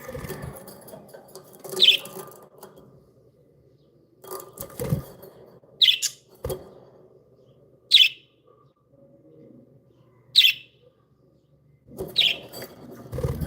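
Pet budgerigars giving short single chirps, about five spaced a couple of seconds apart, with a few soft thumps between them.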